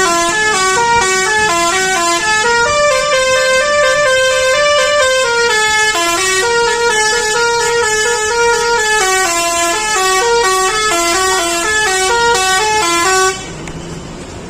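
Bus telolet horn, a Basuri multi-tone musical horn, playing a loud, fast tune of quickly stepping notes with one long held note a few seconds in. It cuts off sharply about a second before the end.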